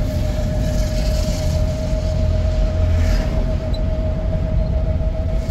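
Car driving along a city road, heard from inside the cabin: steady engine and tyre rumble with a constant whine over it.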